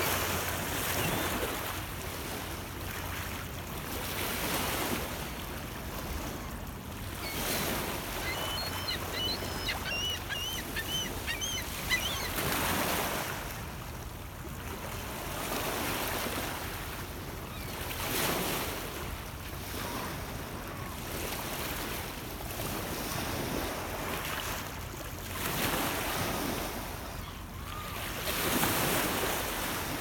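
Small lake waves washing in over a rocky cobble shore, the surf swelling and ebbing every few seconds. Short high bird chirps come in between about 8 and 12 seconds in.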